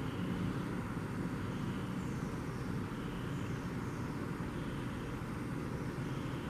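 Steady low rumble of background noise, with no speech.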